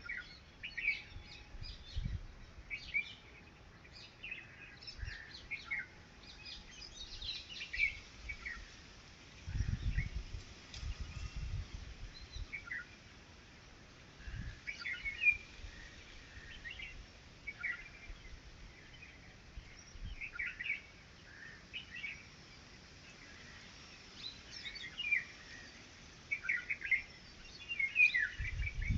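Red-wattled lapwing calls: many short, high chirps scattered irregularly, some in quick runs. A few low rumbles come in between, the strongest about ten seconds in.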